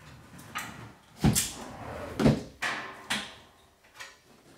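Clunks and knocks from a heavy steel shelving frame with a large touchscreen PC mounted on it as it is heaved upright. There are a few sharp knocks, the loudest about one and two seconds in.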